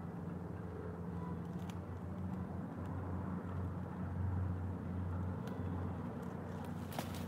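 A low, steady engine rumble that swells a little in the middle, with a few faint clicks.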